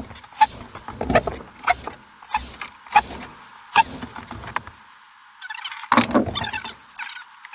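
Drywall being screwed up with a corded screw gun, played back sped up: a quick run of sharp knocks and short high-pitched whirs and chirps, with a pause about five seconds in and a louder cluster just after.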